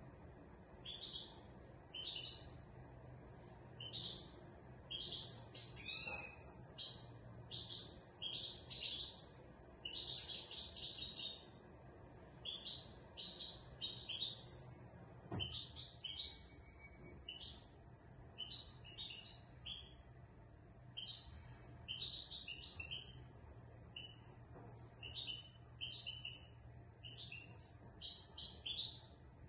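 Caged European goldfinch of the large 'major' race singing: a long run of short, high twittering phrases with brief pauses between them.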